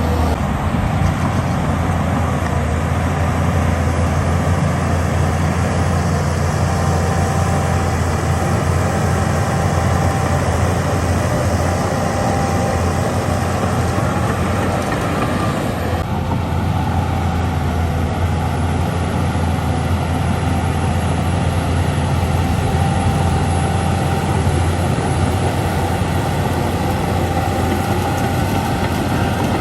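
Diesel engine of heavy earthmoving machinery running steadily, a loud low drone; the sound changes abruptly about halfway through.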